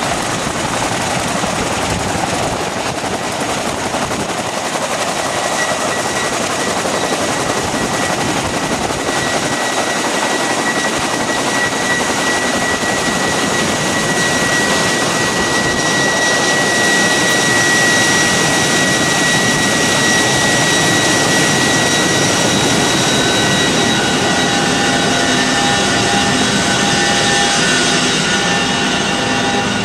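Military transport helicopter running loudly on the ground with engines and rotors turning, carrying a steady high turbine whine. Near the end it is heard from inside the cabin, where several steady humming tones join the noise.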